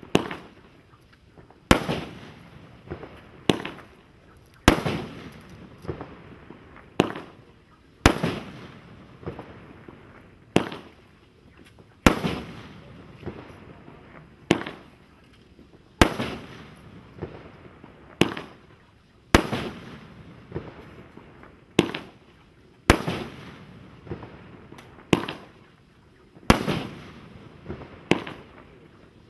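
Multi-shot firework firing a steady string of sharp bangs, a little under one a second apart on average, each fading out over about a second.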